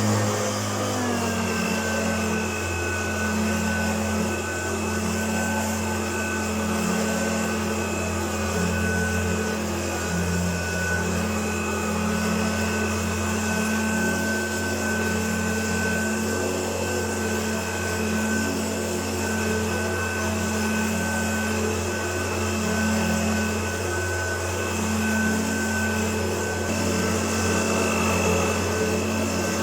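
Hoover Turbopower U2332 upright vacuum cleaner running steadily, its motor settling to a steady high whine about a second in.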